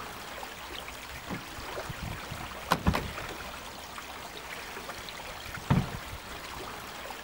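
Steady shoreline water noise, with two sharp knocks about three seconds apart as dive cylinders and gear are loaded into a small boat.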